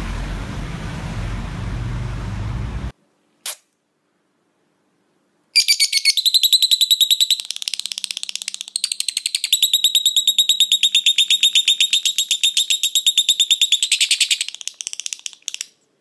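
After a few seconds of steady low background rumble, a Fischer's lovebird gives a long run of rapid, high-pitched chirps at one steady pitch. The chirps go on for about ten seconds and fade out near the end.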